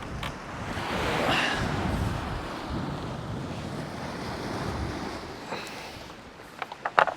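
Waves breaking on the shore, the surf swelling and easing, with wind buffeting the microphone. A few sharp clicks near the end.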